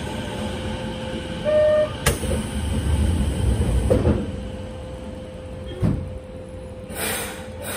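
Kobe Municipal Subway 1000-series train: a steady hum with a short tone and a sharp clunk about two seconds in, then heavy low rumbling. It quietens about four seconds in, with a thump and a brief air hiss near the end.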